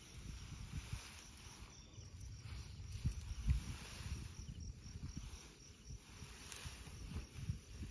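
Insects chirping in a steady, evenly pulsing high trill, over irregular low rumble and thumps.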